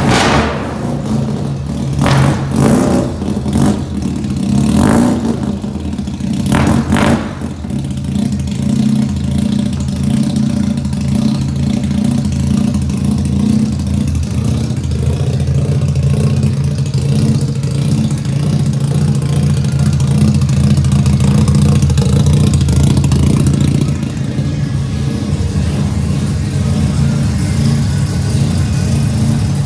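Mazda B2200 pickup's carbureted four-cylinder engine just started, revved several times in the first seven seconds, then settling to a steady idle.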